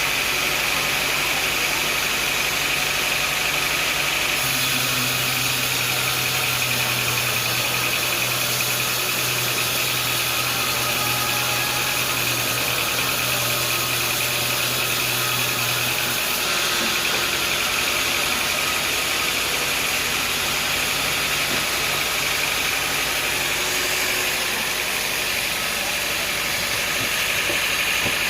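Sawmill machinery running steadily. A deeper hum and extra hiss come in about four seconds in and stop about twelve seconds later.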